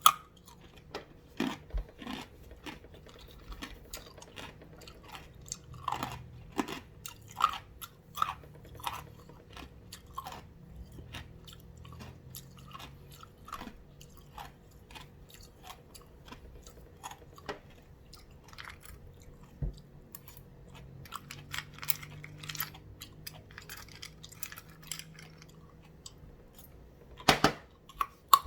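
Ice being bitten and chewed close to the microphone: irregular sharp crunches and cracks with softer chewing between them, and the loudest crunch near the end.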